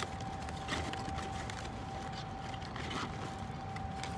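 Steady low outdoor rumble with a thin steady tone held above it and a few light clicks.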